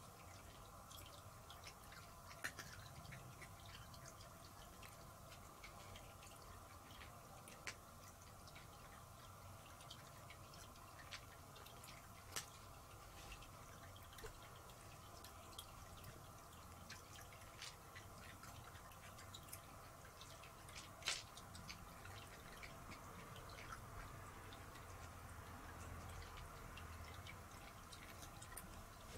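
Near silence: room tone with a steady faint hum and a few scattered faint clicks.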